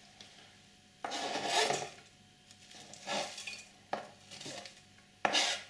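Chopped raw kale being tipped and pushed from the chopping board into a saucepan of cold mashed potato: four short bursts of brushing noise, the loudest about a second in.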